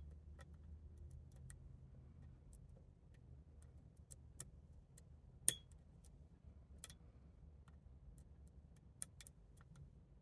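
Faint, irregular clicks and ticks of a hook pick and tension wrench working the pin stack inside an American 1100-body padlock, with a sharper click about five and a half seconds in and another near seven seconds.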